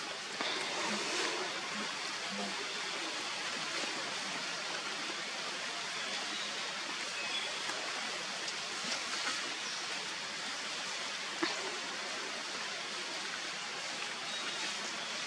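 A steady, even rushing noise, with a few faint clicks and rustles now and then, one a little sharper about two thirds of the way through.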